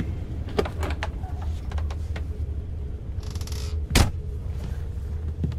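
Steady low drone of an airliner cabin, with a few light clicks, a short hiss a little past three seconds in, and a single sharp knock about four seconds in, the loudest sound.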